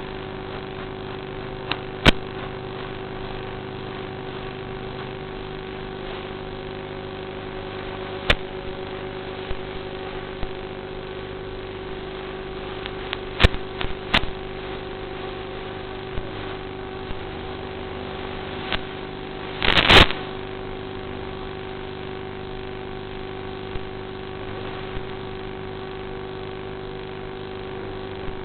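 Steady hum with one strong constant tone, broken by sharp clicks and a short loud crackling burst about two-thirds of the way through.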